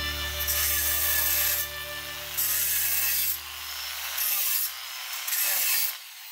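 Handheld electric stone cutter cutting a circular basin hole through a granite slab. The grinding comes in about four loud stretches with quieter gaps, over a steady motor hum that fades near the end.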